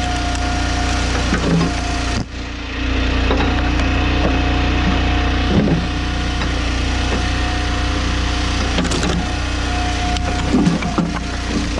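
Engine-driven hydraulic log splitter running steadily, with irregular cracks and knocks of logs splitting apart.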